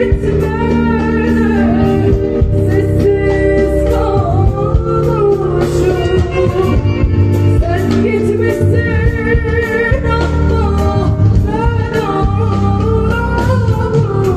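A woman singing live into a microphone over a band through a PA: a solo voice with strong vibrato over sustained bass notes and regular drum hits.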